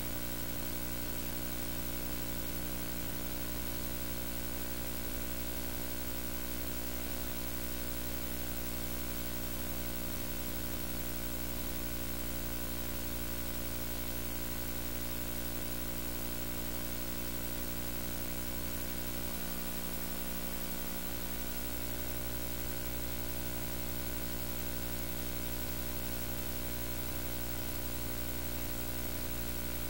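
Steady electrical hum with many fixed tones over an even hiss. It does not change or pulse, so no heartbeat is heard.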